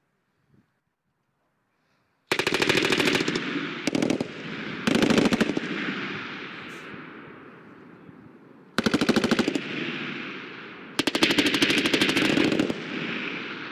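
Automatic gunfire: five bursts of rapid shots from a machine gun, starting about two seconds in, some long and some short, each followed by a long rolling echo that dies away.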